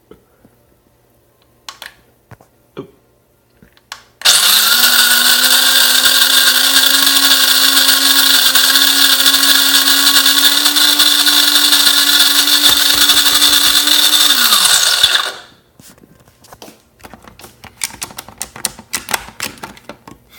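Electric coffee grinder grinding beans: a steady motor whine that starts suddenly about four seconds in, runs for about ten seconds, then cuts out and winds down. A few clicks come before it and a run of light ticks and knocks follows.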